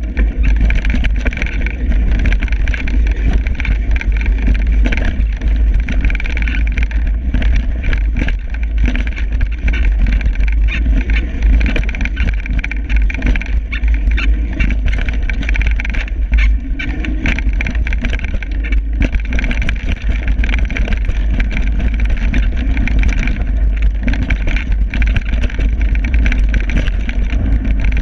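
Downhill mountain bike rolling fast over a rough dirt trail: tyres crunching on the dirt and the bike rattling and knocking over bumps, with wind buffeting the microphone in a heavy continuous rumble.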